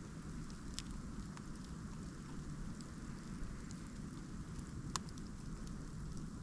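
Outdoor snowstorm ambience: a steady low rumble of noise with a few scattered sharp ticks, the clearest one about five seconds in.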